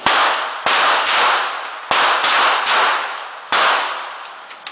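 Handgun shots from several shooters on a firing line: about seven sharp cracks in quick, uneven succession, each with a long echoing tail.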